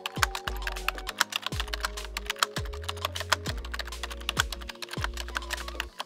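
Rapid computer-keyboard typing clicks, a sound effect keeping pace with on-screen text being typed out, over background music with a deep bass line.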